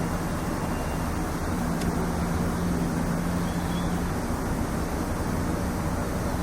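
A steady low hum over a constant rumbling noise, the unexplained 'strange noise' of the recording. The hum fades for a moment about a second in, then comes back.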